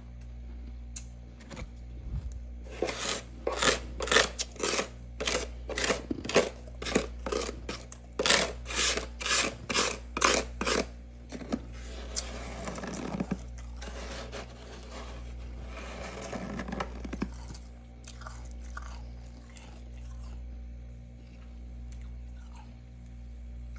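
Freezer frost being chewed with a run of loud, sharp crunches, about two a second. After that come two softer stretches of scraping as frost is gathered from the freezer wall, all over a steady low hum.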